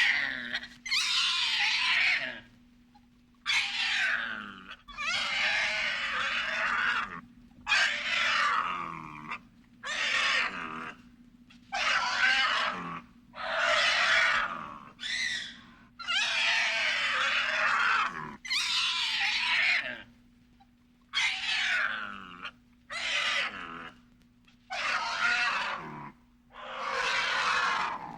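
A series of about fourteen harsh, raspy creature roars, horror monster-style effects, each one to two seconds long with short gaps between, several trailing off in a falling pitch. A faint steady hum sits under them.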